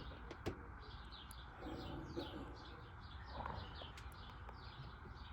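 A small bird chirping over and over, about three short falling chirps a second, with a faint click about half a second in.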